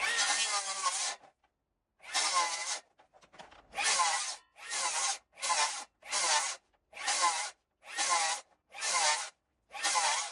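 Hand saw cutting through green oak in strokes: one long stroke, a short pause, then about nine even strokes a little over one a second, each followed by a near-silent gap. This is the cut for the tenon shoulders on a beam joint.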